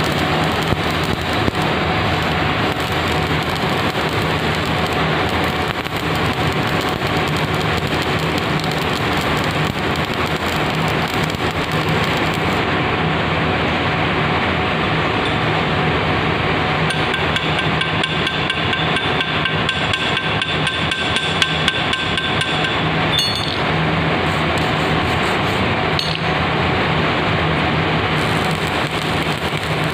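Electric arc welding with a stick electrode on a tea-factory CTC roller, building up its damaged surface: a steady, loud crackle and sizzle from the arc.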